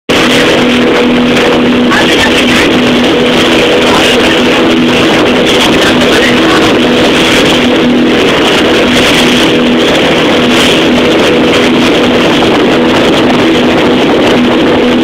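Boat engine running at a steady speed, a loud, unchanging drone over a constant rush of wind and water.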